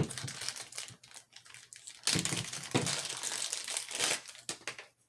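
Packaging crinkling and rustling as it is handled, with scattered light clicks; the crinkling grows busier and louder about two seconds in and stops shortly before the end.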